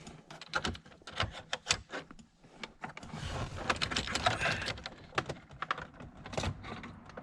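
Irregular light clicks and taps, with some rustling, as an HVAC temperature control cable is handled and fed through behind the dash.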